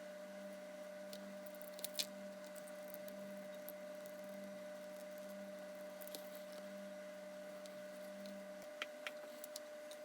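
Faint steady electrical hum with a few light clicks, the loudest a pair about two seconds in and a small cluster near the end; a lower pulsing part of the hum stops shortly before the end.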